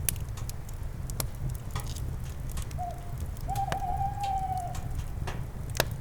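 Campfire crackling with scattered sharp pops, two of them louder near the start and near the end. An owl hoots over it: a short hoot about three seconds in, then a longer wavering hoot that drops at the end.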